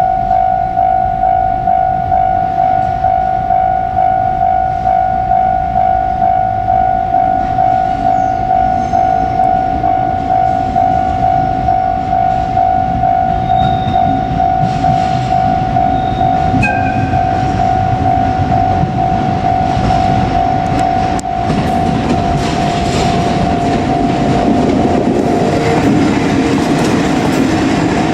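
Electronic level-crossing alarm ringing steadily, a single pulsing tone at about one and a half strokes a second, while a container freight train runs through the crossing. The clatter of its wagon wheels over the rail joints grows louder from about two-thirds of the way in.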